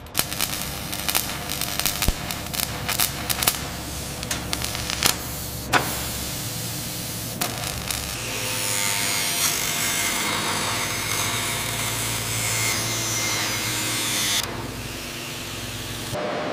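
Irregular metallic clicks and knocks of a large wrench being worked on a heavy bolt. About halfway through this gives way to the steady hissing crackle of a robotic welder, which falls to a quieter hiss near the end.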